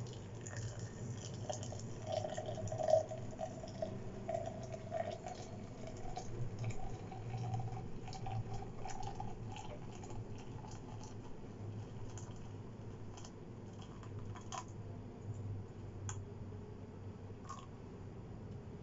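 Hot water poured in a thin stream from a gooseneck kettle onto ground coffee in a glass French press: a faint trickling pour with a tone that slowly rises as the press fills, fading out after about nine seconds, with a few light clicks.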